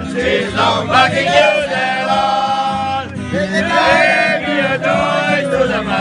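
A group of people singing and chanting together loudly in unison, with some long held notes.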